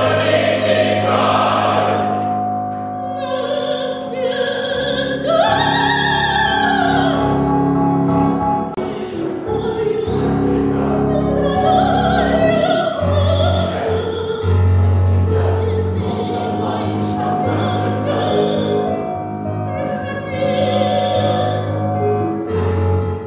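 Music: operatic singing with strong vibrato over choir and instrumental accompaniment with held bass notes.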